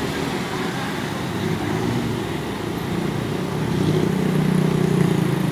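Coach bus's diesel engine running in traffic as it pulls away, a low hum that grows louder about three and a half seconds in.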